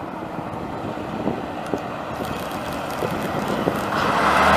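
Vintage London Transport RT-type double-decker bus running along the road towards the listener, its diesel engine growing louder and closing right in about four seconds in.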